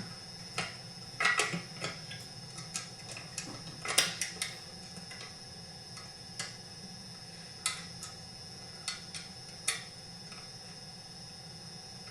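Scattered light clicks and knocks as the chainsaw's cylinder cover shroud is handled and fitted onto the saw, the strongest about a second and four seconds in, over a steady faint high-pitched whine.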